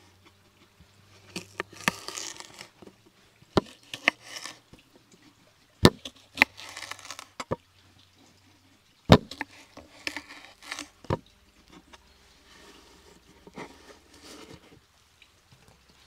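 Food being cut with a knife on a cutting board: irregular sharp knocks of the blade against the board, the loudest about six and nine seconds in, between scratchy scraping and handling sounds.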